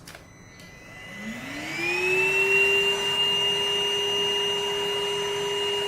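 Cordless vacuum cleaner switched on: its motor spins up with a rising whine over about a second and then runs at a steady high pitch.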